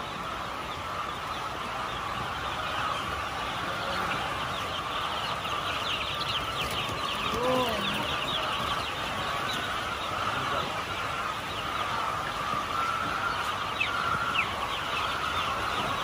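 A dense chorus of broiler chicks peeping, many short high chirps overlapping without a break, from chicks huddled together against the cold. One lower, fuller call stands out about halfway through.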